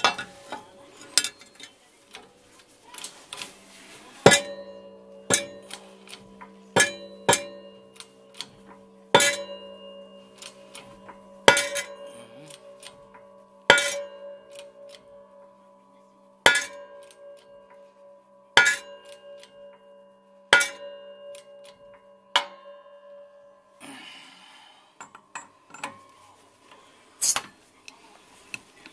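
Hammer blows on steel in rear wheel bearing work, about fifteen strikes one every second or two, each leaving a ringing metallic tone. A brief scraping rustle comes near the end.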